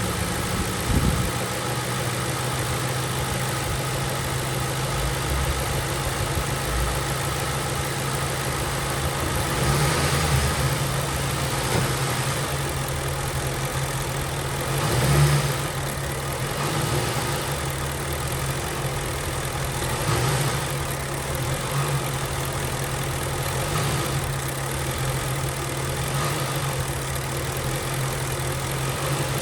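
2007 Ford Crown Victoria's 4.6-litre V8 idling steadily, swelling louder three times, about ten, fifteen and twenty seconds in, as the gas is pressed. Pressing the gas in gear is when the owner hears a rattle from the passenger side.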